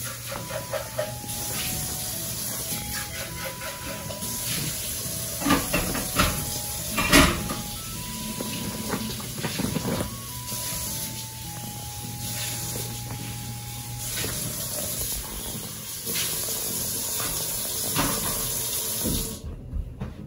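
A kitten pawing and burrowing in a black fabric bag: a steady crinkly rustle with scattered knocks, the loudest about seven seconds in. Soft background music with a simple tune plays under it. The rustling stops shortly before the end.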